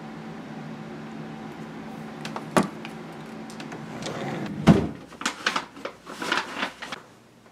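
Hands rummaging through clothes in a dresser drawer over a steady low hum, then a loud knock as the drawer is shut nearly five seconds in. A run of quick clicks and scuffs follows.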